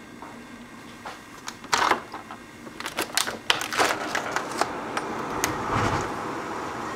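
Windstorm heard from inside a house: a run of sharp rattles and knocks, then a gust swelling with a low rumble near the end.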